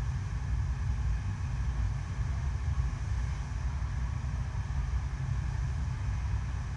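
Steady low rumble of water rushing across an indoor artificial wave ride, a constant pumped flow with a fainter hiss of spray above it.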